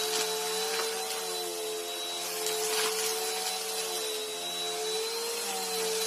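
Bissell upright vacuum cleaners running together: a steady motor drone with a thin high whine as the vacuum is pushed over a gritty carpet. A few faint crackles come from grit being sucked up, and the drone shifts a little in pitch about five seconds in.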